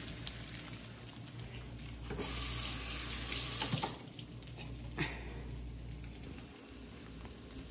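French toast sizzling in butter in a nonstick frying pan, a steady frying hiss. About two seconds in a louder rushing hiss joins it for nearly two seconds, and there is a light knock about five seconds in.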